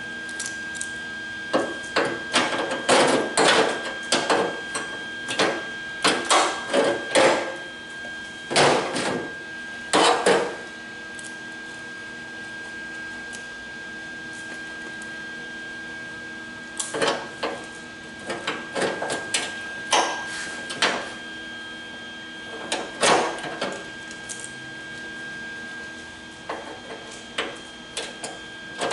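Welder laying a series of short tack welds along the edge of a steel car door skin: brief bursts of about half a second each, in clusters, with a pause of several seconds in the middle.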